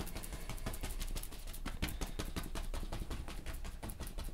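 Stiff bristle brush tapping paint onto a stretched canvas: a quick, uneven run of short dry taps, several a second.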